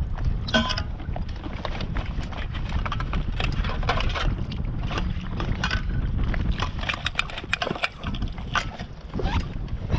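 Wind buffeting the microphone, with water lapping and splashing irregularly against the hull of a Sea Eagle 300x inflatable kayak.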